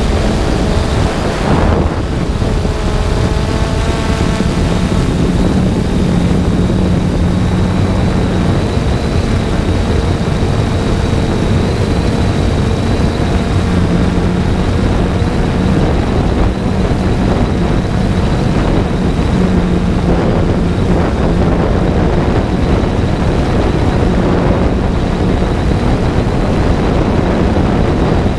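3DR Solo quadcopter's motors and propellers humming steadily, the pitch shifting now and then as the motors change speed, over a loud rushing of wind on the microphone.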